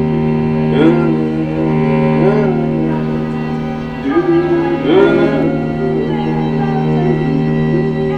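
Music from bowed string instruments: steady held low notes under short sliding notes that swoop up and back down, several times over.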